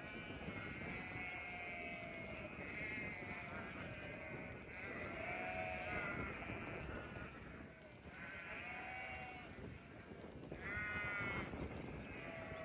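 A flock of sheep bleating: many calls one after another, several voices at different pitches overlapping, over a steady low background noise.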